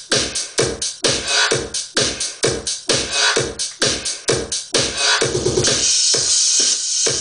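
Electronic club dance music from a DJ mix on CDJ decks, with a steady four-on-the-floor kick at about two beats a second. About five seconds in comes a quick run of rapid repeated hits, then the kick drops out under a bright high wash and comes back near the end.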